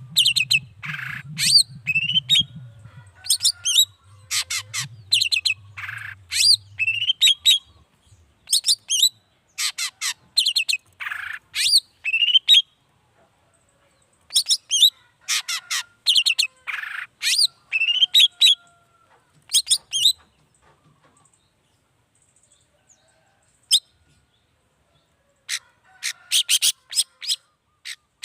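Long-tailed shrike singing in fast bursts of sharp, harsh chattering notes, separated by short pauses, with a longer lull of a few seconds past the middle.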